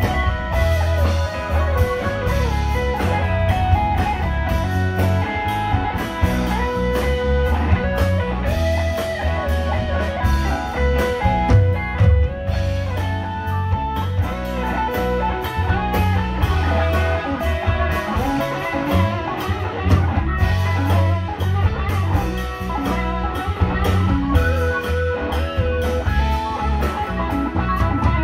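Live rock band playing an instrumental passage: an electric guitar plays a moving lead line over bass guitar and drums.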